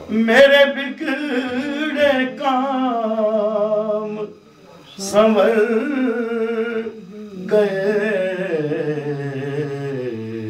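A man's unaccompanied voice reciting a naat in long, wavering, melismatic phrases, with short breaths about four and seven seconds in. Near the end his pitch steps down and settles on a low held note.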